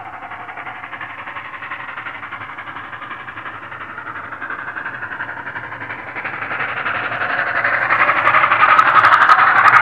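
China Railways JS class 2-8-2 steam locomotive working hard up a grade, its exhaust beats growing steadily louder as it approaches, with a few sharp clicks near the end.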